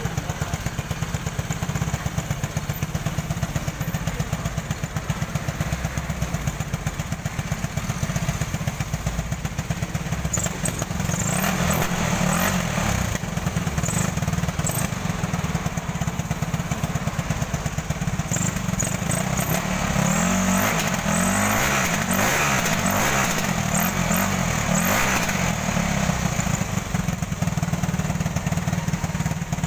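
Yamaha 450R ATV engine running, revved up and down a few times, around the middle and again for several seconds in the later part. It runs fairly well now that its carburettor has been cleaned of dirt that had kept it from starting.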